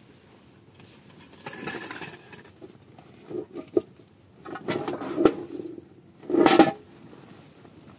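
Household things being handled and rummaged through: rustling of plastic sacks and bags in several separate bursts, with light knocks and clinks, including one sharp knock a little past five seconds in. The longest and loudest rustle comes about six and a half seconds in.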